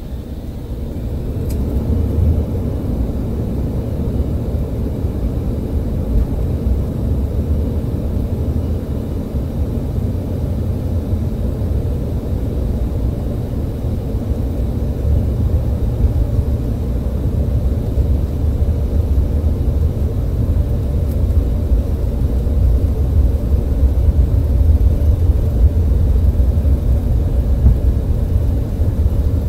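Cabin noise of an Embraer ERJ-175 on its takeoff roll: the jet engines spool up over the first couple of seconds, then a steady, loud, deep rumble of engines and wheels on the runway that grows a little louder as the jet gathers speed.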